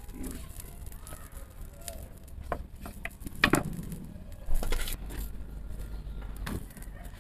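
A few sharp clinks and knocks from gözleme making: a rolling pin and hands working on a wooden board and a metal bowl of spinach filling, the loudest strikes a little past the middle, over a low steady background rumble.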